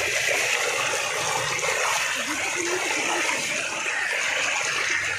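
Floodwater rushing steadily along a flooded lane in a strong current, splashing where it spills past the roadside edge.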